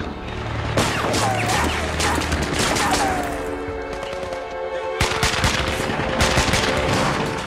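Rapid automatic rifle fire in two long stretches, starting about a second in and again about five seconds in, with a tense music score underneath and holding alone in the lull between them.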